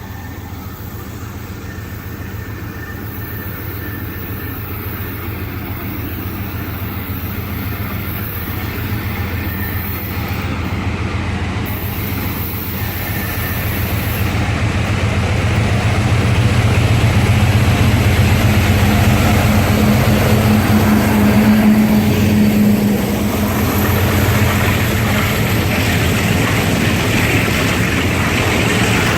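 Cuyahoga Valley Scenic Railroad train approaching and going by on the tracks: a low diesel-locomotive rumble with rail noise that builds steadily and is loudest about two-thirds of the way through, with a held low engine tone at its peak.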